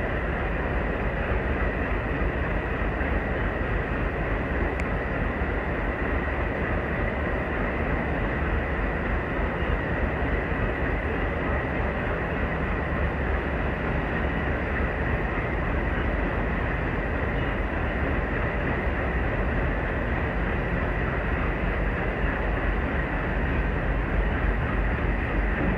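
ICF passenger coach rolling slowly along the track, with a steady rumble of wheels on rail and a steady high whine running through it.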